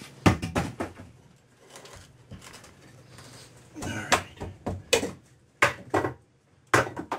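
Irregular knocks and clatters with short creaks from old wooden wall boards being handled and knocked loose; the saw is not running.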